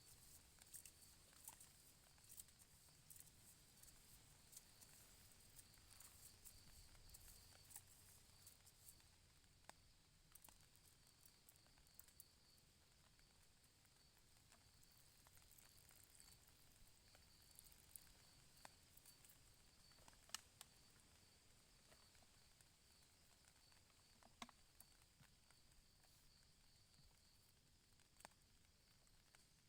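Near silence: faint forest ambience with a steady high insect drone and scattered soft ticks and taps, such as drops falling in light drizzle.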